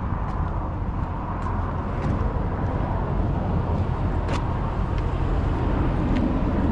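Steady low outdoor rumble, slowly growing a little louder, with a few faint clicks.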